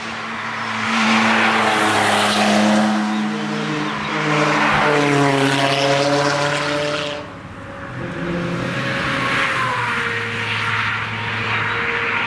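Porsche 911 (996) flat-six engine revving hard as the car accelerates past out of a corner, its note rising. After an abrupt cut, a second car's engine is heard approaching, quieter.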